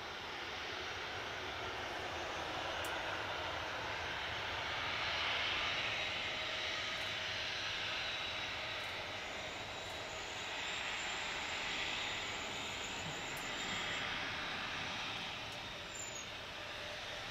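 Boeing 737-800 airliner's CFM56 jet engines running as it rolls along the runway after landing: a continuous rushing jet noise that swells and eases gently a few times.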